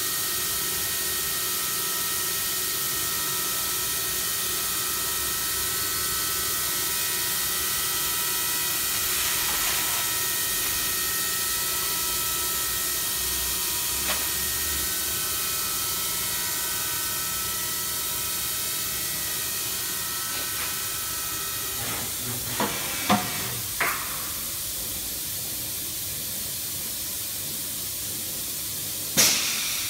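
Chevalier QP2033-L CNC vertical machining center running, a steady hiss under a whine of several steady tones. The tones stop about 22 seconds in after a few clicks, and a loud knock comes near the end.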